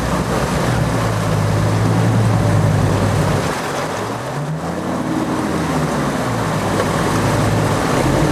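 Land Rover Defender 90's Td5 five-cylinder turbodiesel working under load as it pushes through a deep, fast-flowing river, with rushing, splashing water around it. The engine note holds steady, climbs a little past the halfway point, then drops back.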